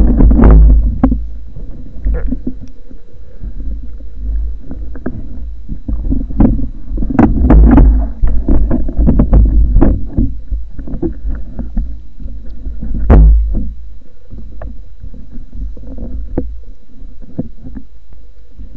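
Underwater water noise as a freediver swims with a speargun: a steady low rumble of moving water with many scattered clicks and knocks. The rumble is loudest in the first second and in the middle, with one sharp knock about two-thirds of the way through, then it settles quieter.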